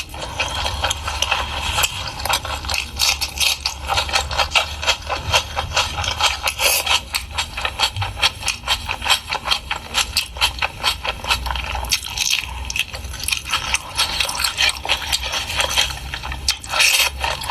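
Chewing of pork during a mukbang: a fast, dense run of small clicks and smacks from the mouth.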